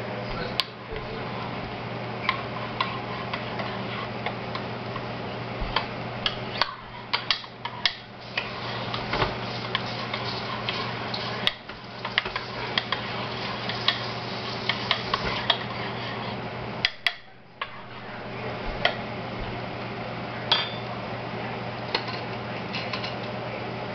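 Spoon and kitchenware clinking and tapping irregularly, many light clicks and knocks, over a steady low hum.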